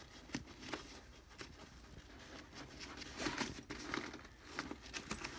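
An Arkiv clip being slid by hand onto a bag's nylon webbing attachment point: faint scattered clicks and rustling of the fabric.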